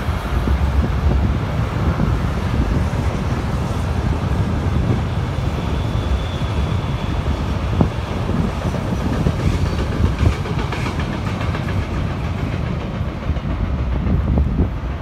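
Freight train rolling past behind an electric locomotive: a steady rumble of wheels on the rails with occasional clatter, mixed with wind buffeting the microphone.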